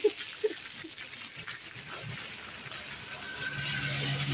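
Water pouring off a tin roof and splashing below: a steady hiss. A low steady hum joins near the end.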